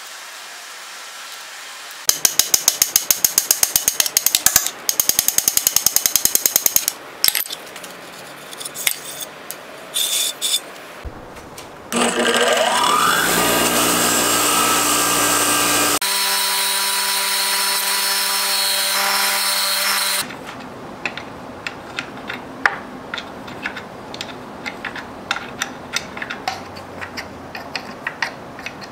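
Two runs of fast, even mechanical clicking, then scattered clicks. A bench grinder with a wire wheel starts, its motor whine rising as it spins up, and runs steadily for about eight seconds, brushing rust off a threaded steel rod, then stops suddenly. Light, scattered ticking and tapping of hand work on metal parts follows.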